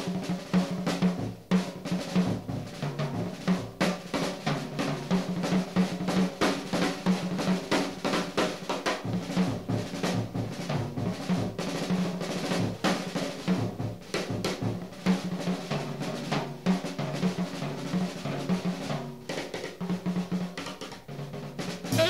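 Jazz drum kit playing a busy passage of snare strokes, rolls and bass drum, with a low bass line moving underneath.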